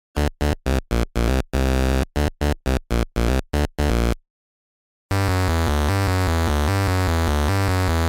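8-bit chiptune synth sounds: a quick run of short, separated staccato notes, a pause of about a second, then a steady buzzing synth pattern from about five seconds in.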